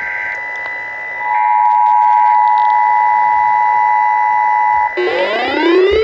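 Emergency Alert System two-tone attention signal: a loud steady dual tone from about a second in until about five seconds in, over a fainter steady high tone. Near the end a rising siren-like wail begins.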